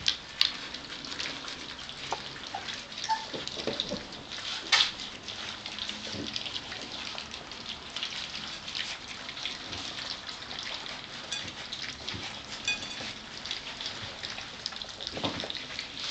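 A litter of four-week-old Gordon setter puppies eating together from one plate: a dense, wet patter of lapping, chewing and smacking, with a couple of louder clicks in the first five seconds.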